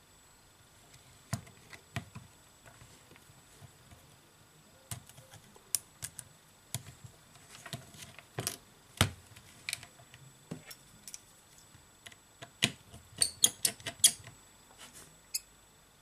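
Small metal repair tools clicking and tapping against an opened iPhone 7's parts during disassembly: scattered sharp ticks, with a quick run of them near the end.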